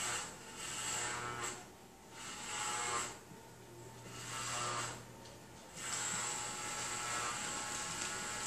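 Corded electric hair clippers buzzing as they shave through long hair on a man's head. The buzz swells and fades several times, then holds steady over the last couple of seconds.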